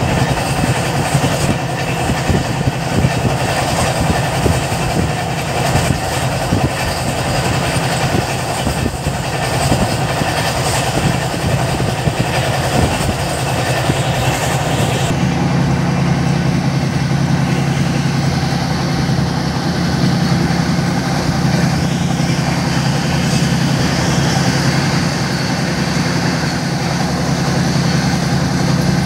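Passenger express train running at speed, heard from aboard a coach: steady running noise of wheels on rails. About halfway through, the hiss thins out and a lower steady hum comes forward.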